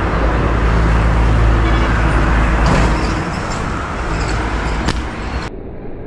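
Low engine rumble of a passing motor vehicle, swelling and then fading over the first three seconds, with a single sharp snap near the end.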